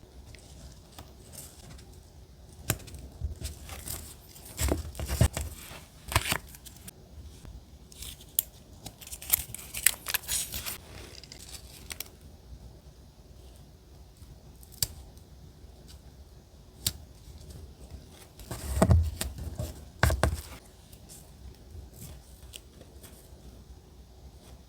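Paper crafting sounds: scattered snips and rustles of paper, with a dense run of tearing or crinkling strokes a little before the middle and a few heavier thumps of paper or tools set down later on.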